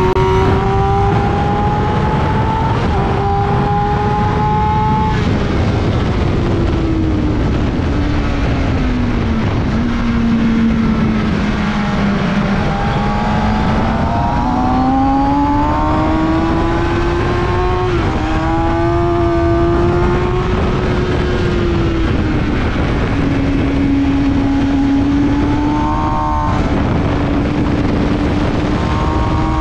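Kawasaki ZX-6R 636's inline-four engine under hard riding on track. Its note climbs and steps down at each gear change, falls through downshifts into a slow corner, then climbs again, all under a constant rush of wind.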